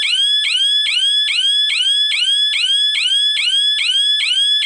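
Siren of a GSM security alarm system going off after a zone-two sensor trips: a loud, high-pitched electronic wail made of quick rising sweeps, about three a second.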